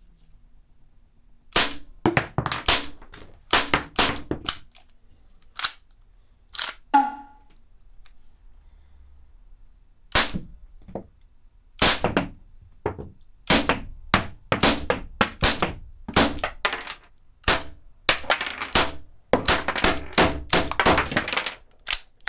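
Marushin Colt Government M1911A1 cap-firing model gun shooting cartridges fitted with loud plugs and prop powder: many sharp cracks in irregular runs, often several close together. There is a pause of a couple of seconds in the middle, and the shots come faster near the end.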